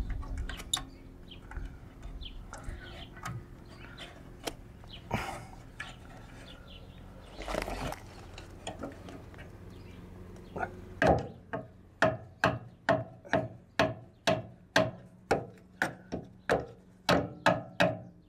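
Hand tools working on a VW T4's metal bumper mounting bracket: scattered clicks and handling noise at first. From about two-thirds of the way in comes an even run of sharp metallic clicks, about two a second, each with a brief ring.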